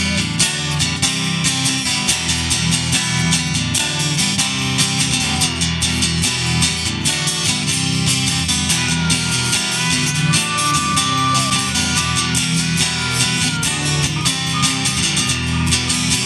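Live rock band playing an instrumental passage between verses, with strummed electric guitar over bass and drums. A held high lead note sounds around the middle.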